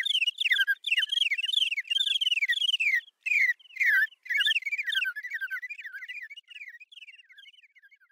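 Bird chirping: a fast, unbroken run of sharp chirps, most sliding down in pitch, that fades away over the last few seconds.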